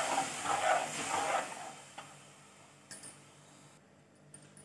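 Steel ladle stirring watery tomato curry in a steel pot, the liquid sloshing in rhythmic strokes for about a second and a half before the sound stops, followed by a couple of faint clicks.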